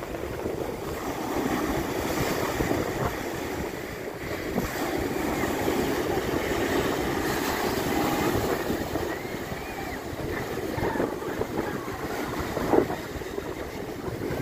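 Ocean waves breaking and surf washing up the beach, the rush swelling and easing, with wind buffeting the microphone. A brief sharp knock about three-quarters of the way through.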